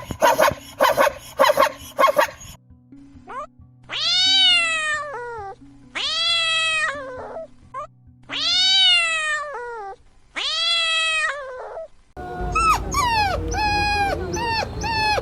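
A dog barks several times in quick succession. Then a cat gives four long, drawn-out meows that rise and fall in pitch. About twelve seconds in, a rapid string of short, high yelping calls begins over a low rumble.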